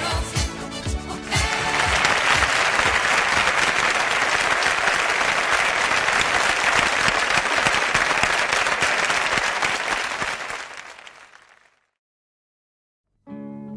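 A song's closing notes end, then an audience applauds for about ten seconds, fading out to a moment of silence. Acoustic guitar strumming starts near the end as the next song begins.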